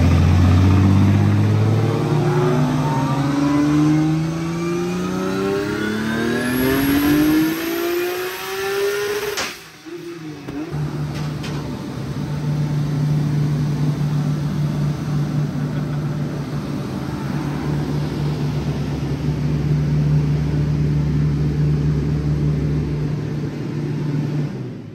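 Turbocharged 2JZ inline-six of a Nissan Silvia S15 making a full-throttle pull on a chassis dyno, rising steadily in pitch for about nine seconds, then cutting off abruptly. A steady drone follows for the rest of the time.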